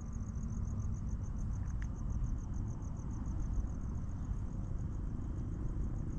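Crickets chirping in a steady high pulsing, about six pulses a second, over a low rumbling noise.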